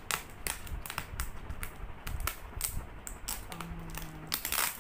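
Fingers tapping and picking at the packing tape on a cardboard shipping box: a string of light irregular taps and clicks, with a longer scraping rustle near the end, and music playing in the background.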